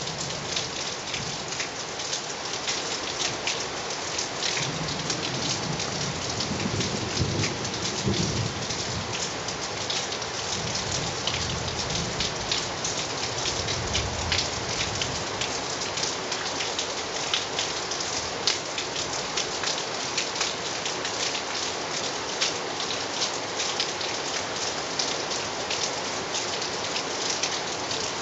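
Steady rain with many separate drop ticks throughout. A long low rumble of thunder comes in about four seconds in and dies away by about fifteen seconds in.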